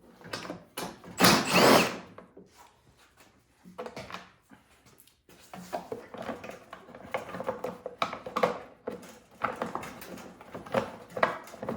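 Hands working in a snowblower's belt housing: a loud scraping rush about a second in, then irregular clicks, knocks and rattles of parts being moved and wiggled.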